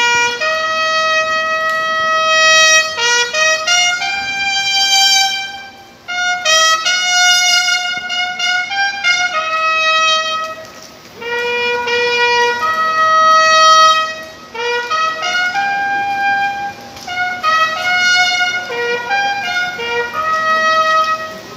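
Bugle (clarim) played solo: a melody of held and quick notes in several phrases, with short breaks between them.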